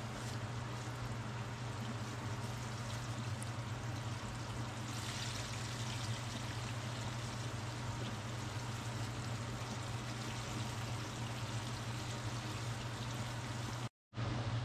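Battered fish pieces deep-frying in hot oil: a steady sizzle over a constant low hum, growing brighter about five seconds in as more pieces go into the oil.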